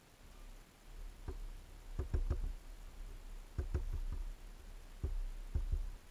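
Small bird pecking and tapping at a hanging seed feeder close to the microphone: short knocks and clicks in irregular little clusters of two to four.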